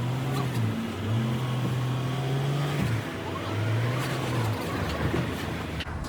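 Car engine given gas in three long spells with short let-offs between them as the car is driven slowly up a car-hauler loading ramp.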